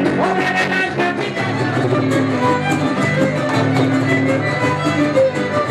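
Huapango played by a trio huasteco: a violin carries the melody over fast, even strumming of the jarana and huapanguera.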